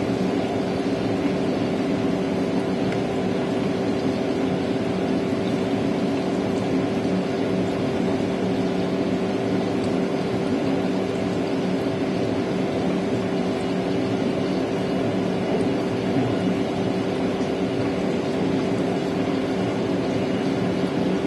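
Steady hum of a saltwater aquarium's pumps and filter, a continuous motor drone with a few level tones under an even hiss of moving water and air.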